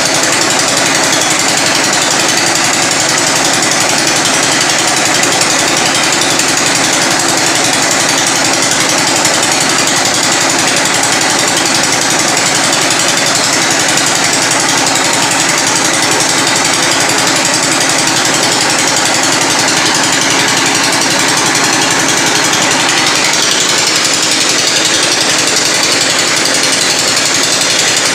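Well-boring rig drilling a horizontal bore into hard rock at the bottom of a dug well: a loud, unbroken rapid hammering of the drill together with the rig's engine running steadily.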